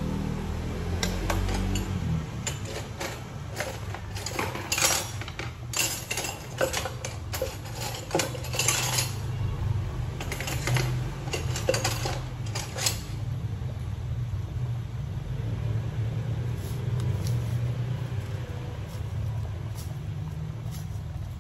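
Pot of water with moringa pods at a rolling boil, a steady low rumble, with a quick irregular run of sharp metallic clinks and clatter from about a second in until about thirteen seconds in.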